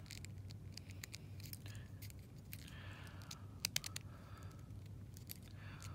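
Small plastic clicks and scraping as a HeroClix figure's stiff combat dial is twisted toward its next click, with a few sharper clicks about three and a half seconds in.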